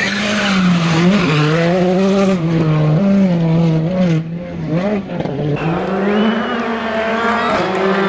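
A Hyundai i20 R5 rally car's turbocharged four-cylinder engine running at high revs on gravel, its pitch stepping up and down with gear changes, with two short lifts off the throttle about four and five seconds in. A different car's engine at high revs takes over about two-thirds of the way through.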